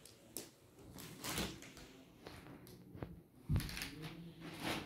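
Clothes and plastic packaging bags being handled: short rustles and crinkles, a sharp click about three seconds in and a dull thump just after it.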